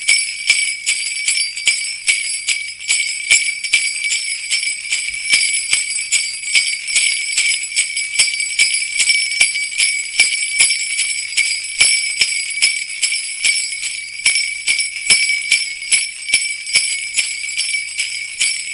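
Sleigh bells shaken in a steady, even rhythm, a continuous bright jingle with ringing overtones.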